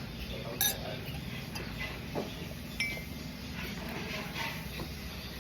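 Cutlery clinking against a plate a few times while eating, one clink ringing briefly, over a steady low background hum.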